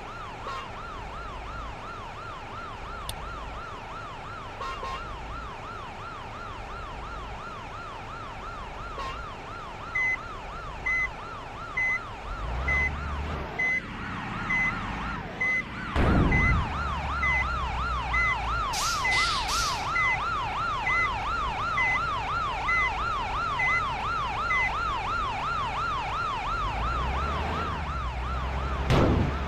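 Electronic siren warbling quickly up and down in pitch without a break. A vehicle engine runs underneath and grows louder about halfway through. For a stretch in the middle a short high beep sounds about once a second.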